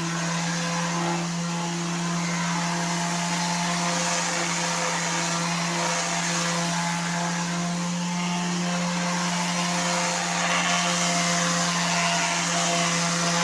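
Electric sander running steadily for wood sanding, a constant motor hum with a hiss over it, a little louder near the end.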